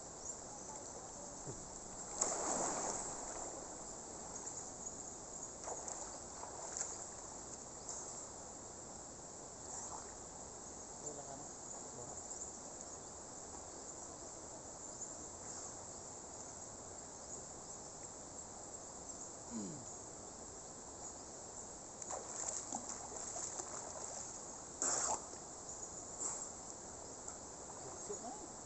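Steady high-pitched insect chorus in tropical forest, with occasional brief water splashing as a man wades and dunks himself in a shallow river.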